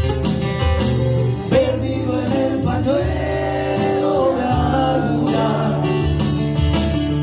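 Live acoustic music: two acoustic guitars playing with a man singing a slow Spanish ballad, and percussion keeping a steady beat.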